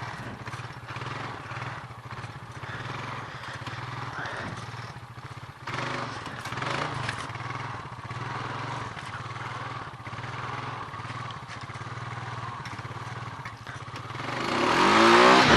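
Honda four-wheeler's engine running steadily under way. Near the end it gets much louder as the throttle opens and the wide, slick rear tires start spinning.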